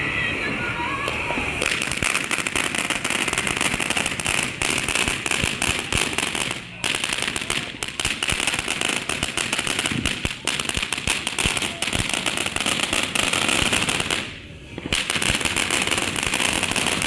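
Consumer ground firework burning with a dense, rapid crackle over a steady high hiss. It cuts out briefly about a third of the way in and again near the end.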